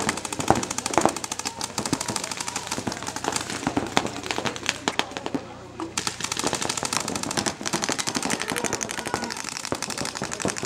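Paintball markers firing in rapid strings of sharp cracks, many shots a second, with a short lull about halfway through.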